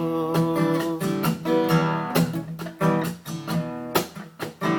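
Acoustic guitar playing an instrumental passage in a blues song. A chord rings for about a second, then a run of sharp strummed strokes follows and thins out near the end.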